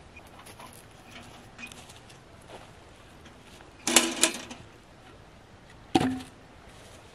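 A metal container set down on hard ground with two quick clanks about four seconds in, followed two seconds later by a single knock as a wooden box is put down beside it. Faint footsteps on dry grass come before.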